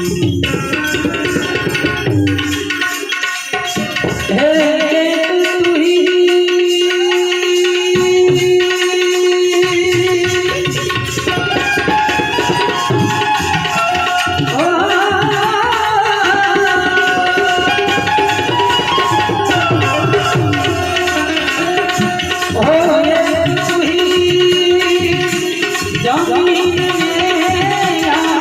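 Instrumental interlude of a Gujarati devotional bhajan: tabla playing a steady rhythm under a harmonium melody.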